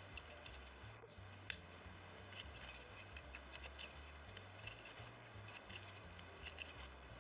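Faint handling sounds of a plastic tatting shuttle and thread: many light clicks and ticks as the thread is pulled taut and double stitches are tightened, with one sharper click about one and a half seconds in.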